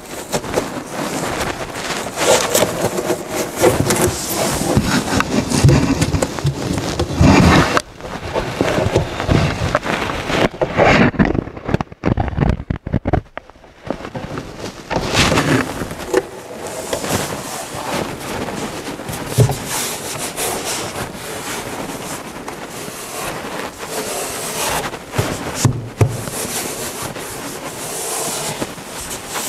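Stiff cardboard-backed fabric panels scraping, rubbing and knocking against the wooden walls of a trunk as they are pushed and slid into place, in irregular bursts with a brief lull partway through.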